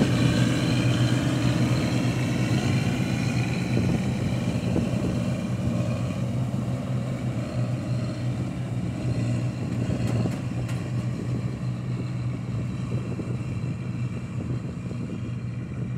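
A 1988-model combine harvester's diesel engine and threshing machinery running steadily while it cuts standing grain, growing slowly fainter as it moves away.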